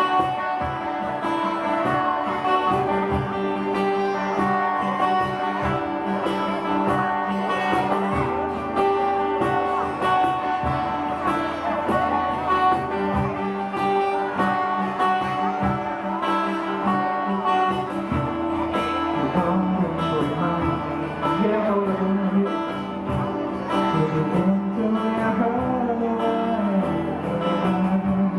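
Live band playing a guitar-led cover song, with steady drum strokes under held guitar chords; from about two-thirds of the way through, a line with bending pitch comes in over the top.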